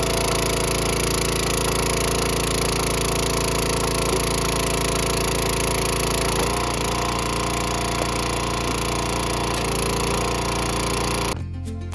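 Small gas engine of a 30-ton hydraulic log splitter running steadily, its tone shifting slightly about halfway through. Near the end the engine sound cuts off abruptly and music begins.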